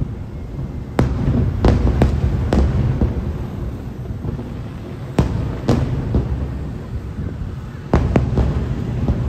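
Aerial firework shells bursting: sharp bangs come in clusters, about nine in all, near the start, in the middle and near the end. A low rolling rumble of echoes runs between them.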